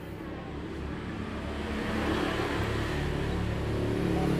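A motor vehicle engine running steadily, its rumble growing gradually louder.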